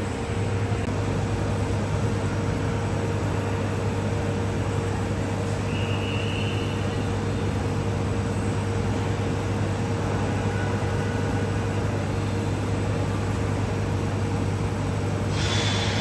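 Steady jet aircraft engine rumble with a constant hum, heard at an airport; a brief high note about six seconds in and a hiss that comes in near the end.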